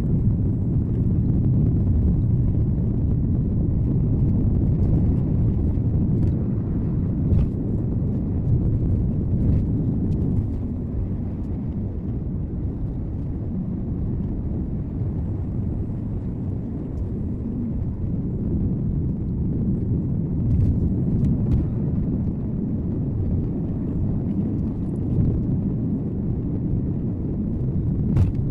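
Car driving along a road: steady low rumble of road and engine noise as picked up by a dashcam, with a few faint light clicks.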